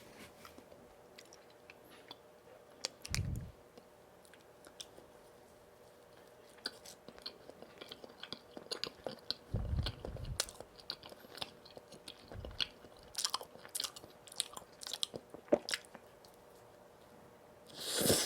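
Close-miked chewing and biting of donuts: soft, sticky mouth clicks and smacks, with a few low thuds and a louder bite near the end.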